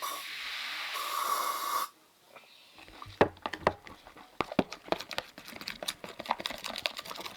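Aerosol spray starch hissing steadily for about two seconds, then slime being mixed with many irregular wet, sticky clicks and snaps.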